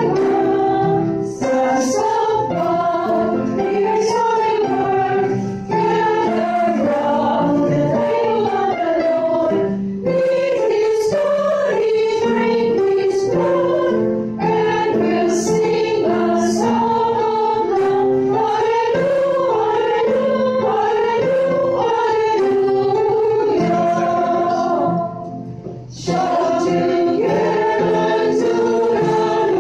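A small choir singing together in rehearsal, with brief pauses between phrases; the longest comes about twenty-five seconds in.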